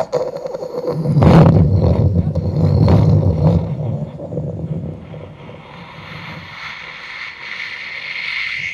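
A man imitating a thunderstorm with his voice: a sharp crack about a second in, then a loud rolling rumble that fades over a few seconds, followed by a steady hissing that builds until it stops suddenly.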